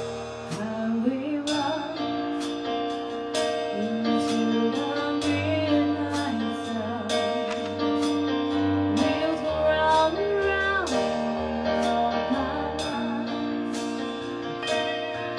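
A woman singing through a microphone with a live band of keyboard, bass guitar and drums, her voice gliding between long held notes over a steady beat.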